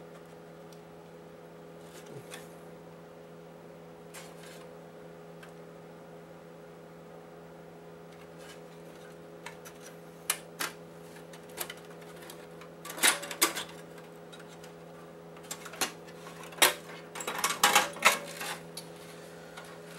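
Clicks and clatter of hard plastic and metal PlayStation 4 parts being handled as the motherboard is worked free of its chassis: a few isolated clicks at first, then busier bunches of knocks in the second half, over a steady low hum.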